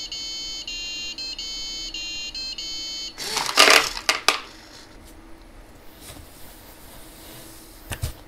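An electronic beeping tune of steady tones that step in pitch, then, about three seconds in, a loud clatter lasting about a second as the servo-driven treat feeder drops cat treats into its plastic bowl. A sharp click near the end.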